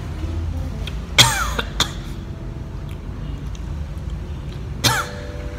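A man coughs twice, about a second in and near the end, while eating a spicy crispy fried grasshopper; the chili heat sets him coughing.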